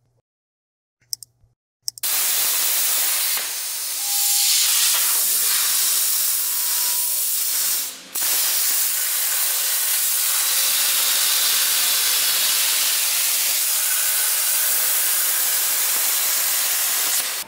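A few faint mouse clicks, then about two seconds in a CNC plasma torch fires and cuts steel plate with a loud, steady hiss. The hiss breaks off briefly near the middle, starts again and stops just before the end as the cut finishes.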